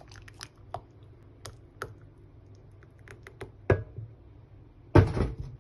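Light clicks and taps of a steel saucepan against a ceramic mug as thick ragi porridge is poured, then a louder clatter about five seconds in.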